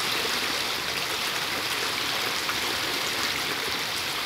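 Steady rush of flowing river water, an even hiss with no distinct splashes.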